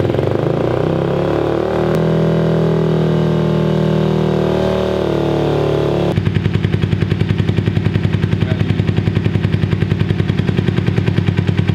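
Kawasaki Ninja 250 parallel-twin motorcycle engine running just after starting, held at a raised steady speed for about six seconds, then dropping to a lower idle with an even, rapid throb. It is a test run with the valve lash freshly set and the twin carburettors not yet synced.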